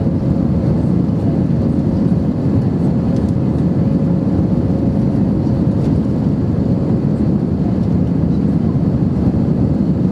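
Steady cabin noise of an Airbus A320-232 in flight, heard inside the cabin: the even low rush of its IAE V2500 engines and the airflow over the fuselage, with a faint steady hum note over it.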